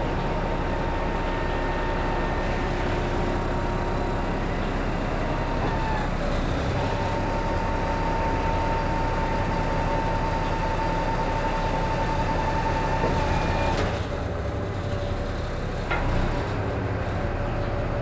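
Hydraulic truck crane working under remote control: steady running of the truck's engine and hydraulic system with a steady high whine that breaks off briefly about six seconds in and stops near fourteen seconds, as the boom is moved and extended. A sharp clunk sounds about sixteen seconds in.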